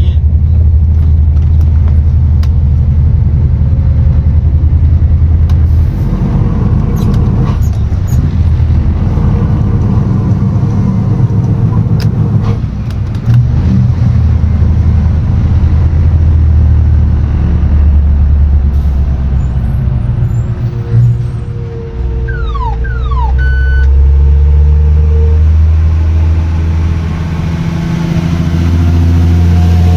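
Diesel engine of a heavily loaded Scania off-highway logging truck running under load, its note and level shifting several times as it works through the gears. A couple of brief falling squeals about two-thirds of the way through.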